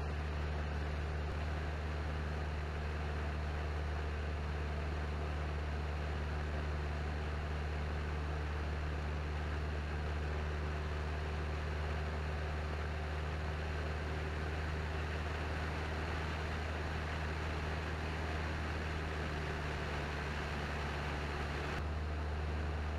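Cessna 172N's four-cylinder Lycoming engine and propeller droning steadily in cruise, heard inside the cabin as a low, even hum under a constant rush of air noise.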